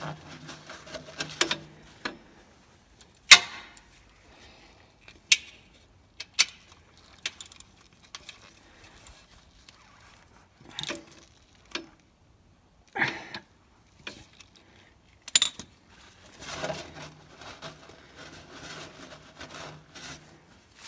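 A ratchet and socket clicking and clinking as the oil drain plug is tightened, in single sharp clicks about a second apart, between stretches of a shop rag rubbing and wiping around the plug near the start and near the end.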